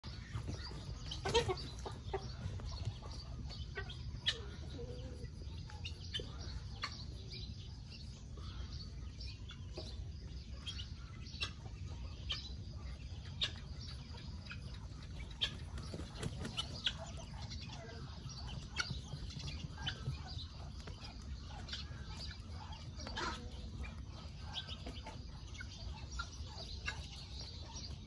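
Chickens clucking, with many short, sharp calls scattered through, over a steady low rumble.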